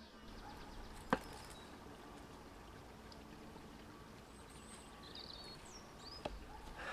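Quiet outdoor ambience with no engine running. There is a sharp knock about a second in and a softer one near the end, and a few brief high bird chirps in between.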